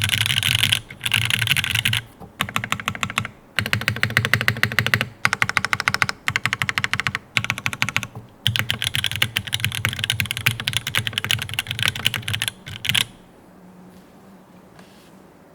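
Fast typing on a mechanical keyboard with TTC PT Black linear switches, GMK keycaps and a carbon fiber plate: quick runs of keystrokes broken by short pauses. The typing stops about two and a half seconds before the end, leaving faint hiss.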